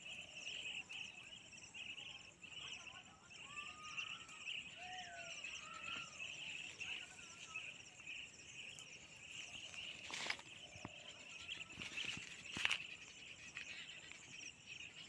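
A steady chorus of insects: a pulsing high buzz with a faster, finer ticking above it. A few faint bird calls come a few seconds in. Two sharp knocks, like thorny branches being snapped or jerked, come around ten and twelve and a half seconds.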